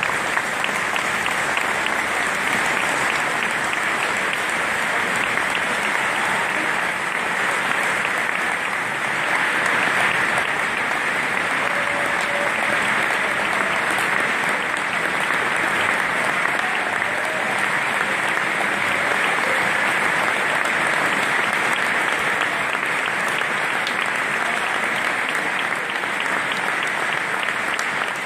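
Large audience applauding, a dense, steady clapping that neither builds nor fades.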